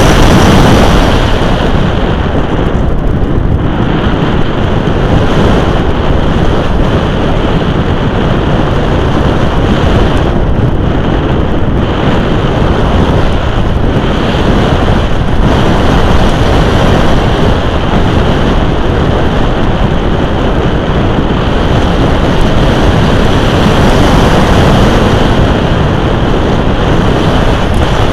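Airflow rushing over the microphone of a camera mounted on a radio-controlled glider in flight: a loud, steady wind noise that eases slightly about a second in.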